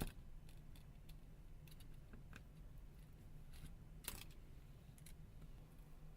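Faint small clicks and taps of a hand tool working on the opened phone's parts, with sharper clicks at the start and about four seconds in, over a low steady hum.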